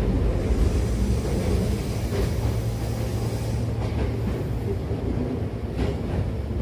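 Hankyu commuter train running, heard inside the passenger car: a steady low rumble of wheels on rail, with a few faint clicks.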